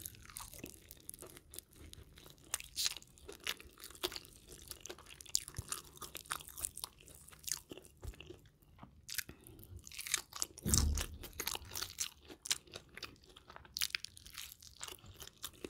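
Crispy sauced fried chicken being bitten and chewed close to the microphone: a steady run of sharp, crackly crunches. A single dull low thump comes about two-thirds of the way through.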